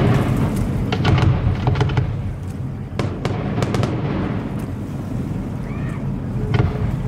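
Fireworks display: a series of sharp bangs and crackling bursts from aerial shells, bunched about a second in and again around three to four seconds in, over a steady low rumble.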